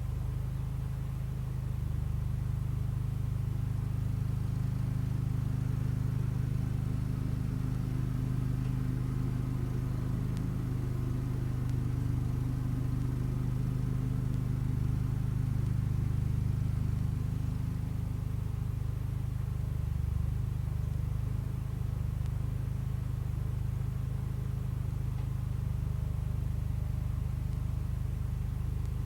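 1975 Case 224 garden tractor's engine running steadily at an even speed.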